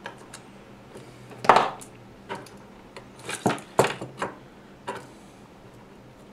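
Small metal hand tools clicking and clinking against a circuit board and workbench while the board is being worked on: several sharp clicks, the loudest about a second and a half in.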